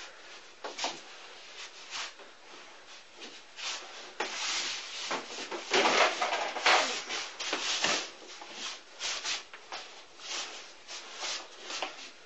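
Two people sparring at sticky hands (chi sao): quick slaps and rubs of arms and hands with scuffing feet. The scuffle grows busier and louder in the middle.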